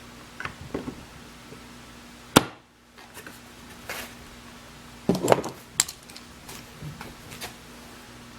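Clamps being set to hold a hinge-drilling jig on a wooden cabinet door: scattered clicks and knocks of tool handling, with one loud sharp snap about two and a half seconds in and a cluster of knocks about five seconds in.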